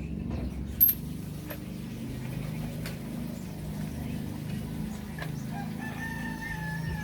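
A rooster crowing once near the end, one long held call, over a steady low rumble, with a single sharp click about a second in.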